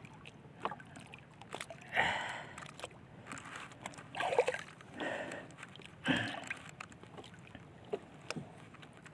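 Small splashes and water sloshing at the side of a small wooden outrigger fishing boat, as a hooked fish is put into a mesh net hung over the side. Four short splashy bursts come about two, four, five and six seconds in, among scattered light knocks.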